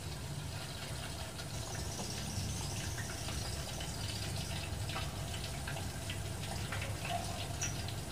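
Faint low steady rumble with scattered soft ticks and a couple of faint, short high chirps near the end. The dove is not cooing.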